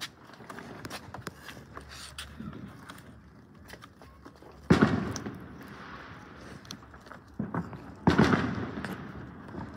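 Fireworks exploding: two loud sudden bangs, about five and eight seconds in, each dying away over about a second, with a smaller bang just before the second and scattered faint pops between.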